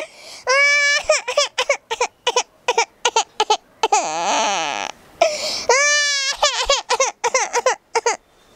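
A boy imitating a baby crying with his voice: long pitched wails about half a second and six seconds in, a rough screeching cry that falls in pitch around four seconds in, and runs of short choppy sobbing bursts between them.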